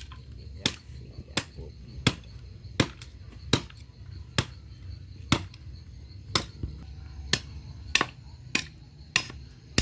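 Firewood being chopped: a steady run of sharp blows, about one every three-quarters of a second.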